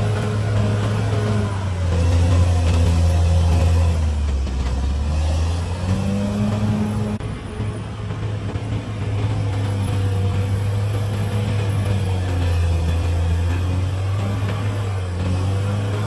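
CAT D6R bulldozer's diesel engine running steadily, its low note dipping and recovering a few times.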